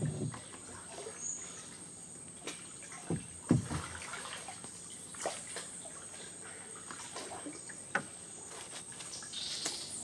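Water sloshing and lapping against a small boat's hull as it glides slowly along a still creek, with a few scattered soft knocks and splashes.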